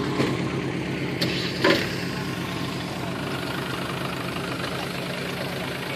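Land Rover engine idling steadily, with two short sharp clicks about a second in.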